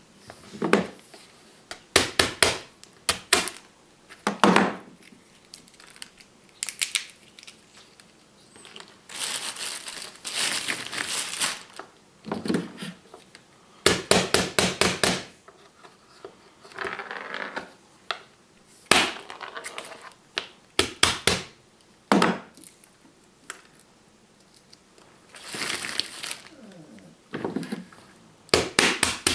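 Irregular series of sharp knocks and short crunching, scraping bursts, some clustered in quick pairs and triples, others stretched out over about a second.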